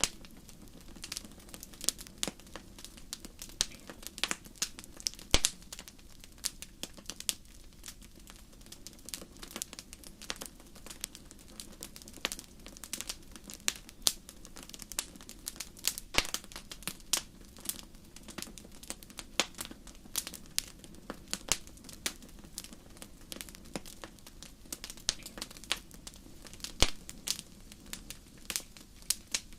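Wood fire burning in a fireplace, crackling with a dense run of irregular sharp pops over a soft low rush of flame. A few pops stand out much louder, one about five seconds in and another near the end.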